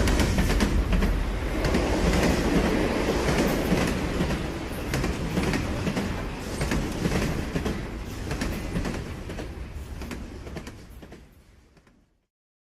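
Loud rumbling, clattering mechanical noise with many sharp clicks, slowly fading away and dying out near the end.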